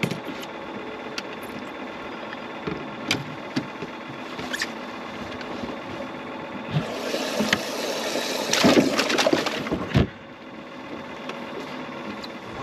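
A small electric motor on the fishing boat hums steadily, with a few light clicks and knocks from handling gear. About seven seconds in, a loud rushing noise starts suddenly and stops abruptly about three seconds later.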